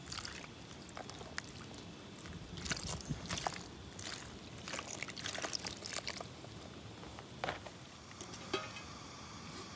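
Water dripping and pattering onto a banana leaf as wet mushrooms are squeezed and handled, heard as faint scattered splashes and small clicks.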